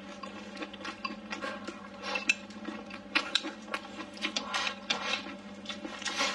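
Close-miked mouth sounds of eating: wet chewing, sucking and lip smacks as a soft blistered green pepper (tiger-skin pepper) with rice is bitten and chewed, with many short clicky smacks. A faint steady hum runs underneath.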